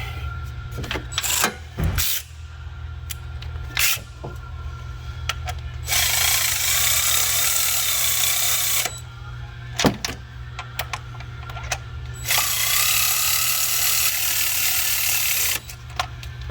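Handheld power tool running twice, about three seconds each time, with a slightly wavering motor whine. Sharp clicks and clanks of tools are handled in between.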